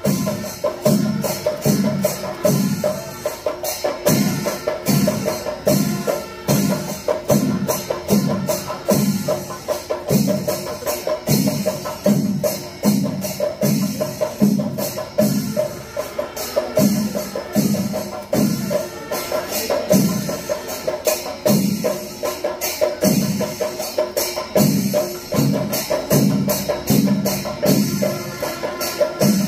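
Percussion ensemble playing: steady low drum beats a little more than one a second under fast, continuous clashing of small cymbals, with a faint steady tone held beneath.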